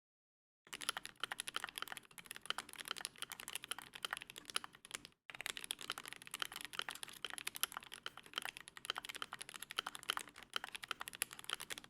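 Rapid, continuous typing on a GMMK Pro aluminium mechanical keyboard with Momoka Frog switches and Akko Midnight keycaps: a dense run of key clacks that starts about a second in, breaks off for a moment around the middle, then carries on and stops suddenly at the end.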